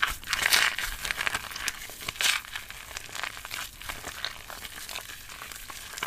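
Hands squeezing play dough and pressing it into a thin plastic cup: irregular crinkling and crackling, with two louder bursts in the first few seconds and softer scattered clicks after.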